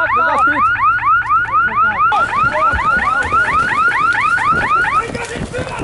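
Electronic alarm sounding a fast, repeating rising-and-falling chirp, about five chirps a second, that cuts off about five seconds in. Footsteps and the rustle of gear follow as people run.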